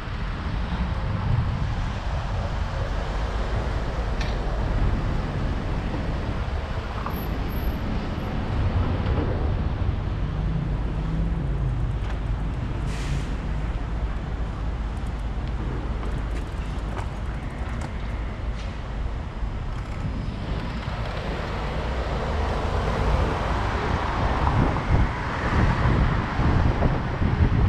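Wind rushing over a helmet-mounted action camera while cycling, over a steady low rumble of city street traffic. A short hiss comes about halfway through, and the wind grows louder and gustier near the end.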